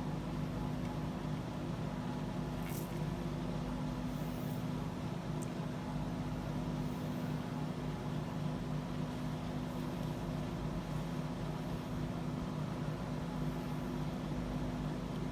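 Whole-house fan running, a steady mechanical hum with a low drone that does not change.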